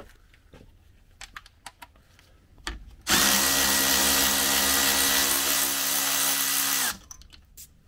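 Cordless electric ratchet running on the water pump housing nuts of a sterndrive, a steady motor whine at constant pitch that starts about three seconds in, runs for about four seconds and stops sharply.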